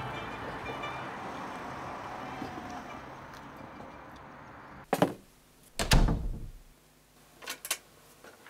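Car door: a sharp click about five seconds in, then a heavy thud of the door shutting a second later, followed by two light clicks. Before that, a steady background wash fades away.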